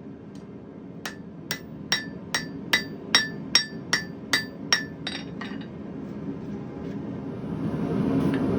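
Blacksmith's hammer striking hot steel on an anvil, stretching out the eye of a forged bottle opener. It lands about a dozen ringing blows in a steady rhythm of roughly two and a half a second, the last few lighter. After the blows a steady rushing noise grows louder toward the end.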